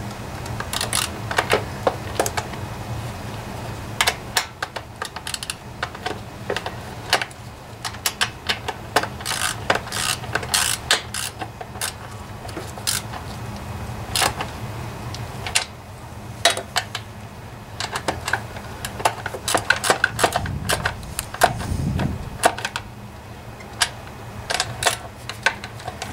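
Ratchet wrench clicking in short irregular runs as the nuts holding the recoil starter onto a Subaru EA190V engine's studs are tightened.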